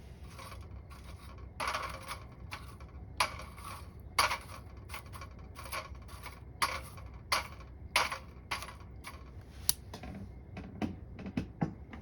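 Firewood crackling and popping as it burns in a small metal wood stove: irregular sharp pops, over a dozen, some louder than others, over a low steady rumble.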